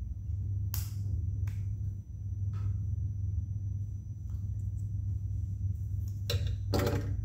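Plastic Lego Technic parts being handled and pressed together: a few scattered sharp clicks, with a short rattly cluster near the end. A steady low hum runs underneath.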